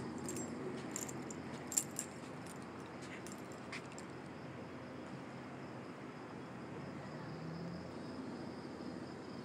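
Faint night ambience: a steady high chirring of crickets, with a few light clicks from handling the phone in the first four seconds.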